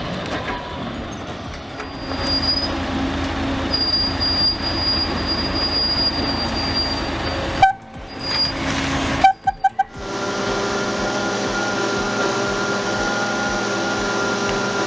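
Cable yarder machinery running, a steady mechanical din with high, sustained squealing tones from its cables and drums. The sound cuts off abruptly about eight seconds in, and a different steady machine whine carries on from about ten seconds in.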